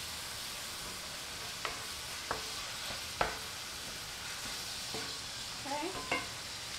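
Seasoned ground beef sizzling steadily in a cast iron skillet as a wooden spoon stirs it, with three sharp knocks of the spoon against the pan, the loudest about three seconds in.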